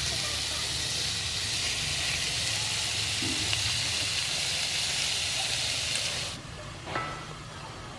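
Fish steaks sizzling in hot oil and pounded spice paste in a pot, a steady loud hiss. The sizzle cuts off sharply about six seconds in, leaving quieter outdoor background with a single knock.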